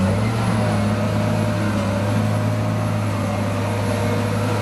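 Caterpillar wheel loader's diesel engine running steadily under load as the machine pushes sand with its bucket: a constant low drone with a faint high whine above it.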